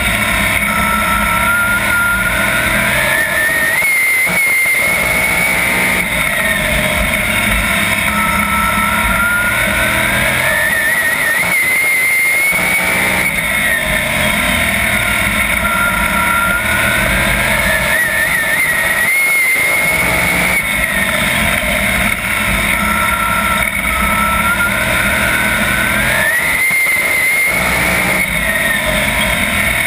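410 sprint car's V8 engine at racing speed, heard from the cockpit: the engine note climbs along each straight, then briefly drops as the throttle lifts for a turn, four times, once each lap.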